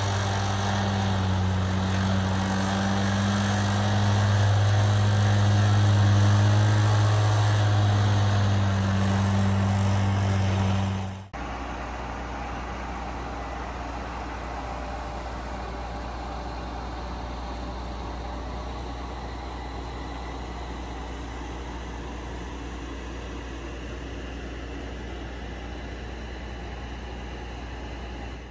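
A large engine running steadily with a low drone. About eleven seconds in it cuts off abruptly to a quieter, steady low hum.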